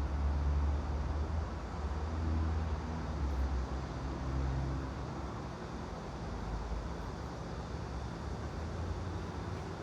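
Steady ambient background noise with a deep low rumble, heavier over the first half and easing off after about five seconds.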